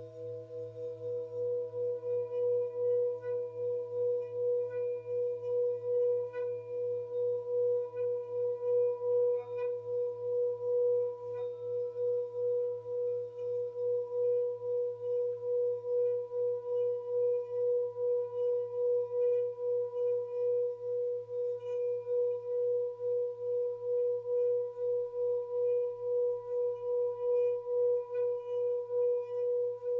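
Tibetan singing bowl holding one long sustained tone with a fast, regular wobble in loudness. It swells up over the first couple of seconds.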